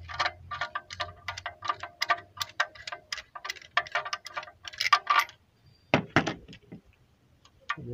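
Ratchet wrench clicking on the number two spark plug of a Renault 1.4 engine: a rapid, uneven run of short metallic clicks with a ringing tone for about five seconds, then two louder knocks about six seconds in and a few scattered ticks.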